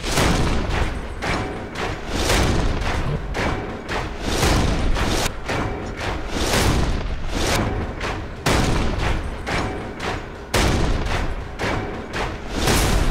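Dramatic instrumental music driven by a steady marching beat of heavy, booming drum hits, a few each second.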